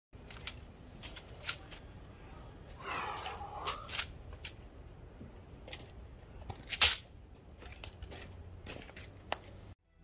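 A taped bundle of thin metal tubes clinking and rattling as it is picked up and handled, in a series of sharp clicks with a short scraping rattle about three seconds in and one louder clack about seven seconds in.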